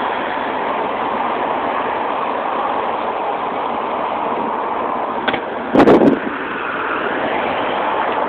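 Steady rushing noise of road traffic, with one loud, brief knock about six seconds in.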